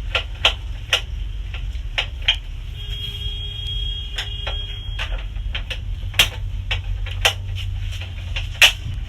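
Irregular sharp clicks and taps of metal parts being handled and fitted, about fifteen in nine seconds, over a steady low hum.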